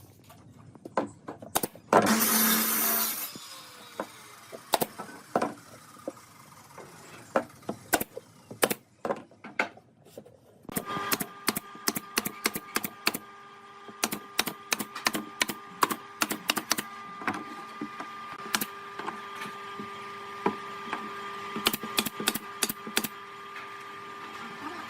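Woodworking sounds: scattered sharp knocks and taps on wood, with a loud burst of noise lasting about a second near the start. About eleven seconds in, a small electric tool motor starts and runs steadily while sharp clicks and taps go on over it.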